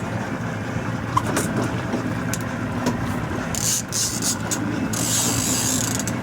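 Boat motor running steadily under the mechanical clicking and whirring of a fishing reel while a hooked fish is fought, with bursts of hiss about halfway through and near the end.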